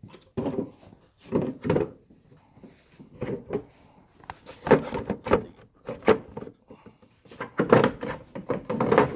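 Irregular plastic knocks, clicks and rubbing as a tail-light bulb socket is worked into its housing.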